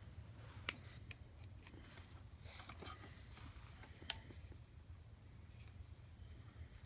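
Faint handling noise: a few light, sharp clicks and a little rustling over a steady low hum.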